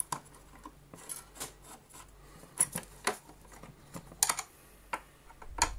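Irregular clicks and taps of a screwdriver and metal bracket and spring parts knocking against the plastic body of a Hoover Junior vacuum cleaner as the wheel bracket springs are worked into place.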